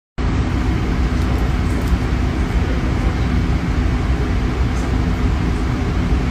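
Steady low rumbling noise with a faint constant hum beneath it, cutting out to silence for a moment right at the start.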